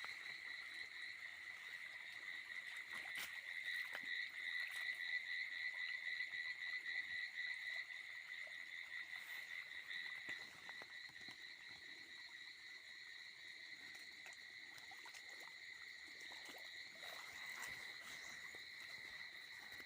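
Frogs calling in a steady night chorus of fast-pulsing trills.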